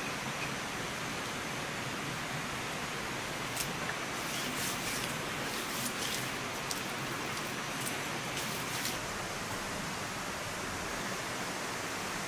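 Steady rain hiss throughout. In the middle, a few short soft wet sounds of a hand rubbing seasoning into the skin of a large raw fish.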